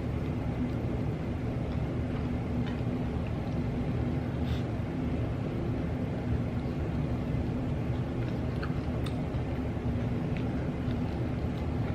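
A steady low background hum, with a few faint clicks of chewing and utensils scattered through it.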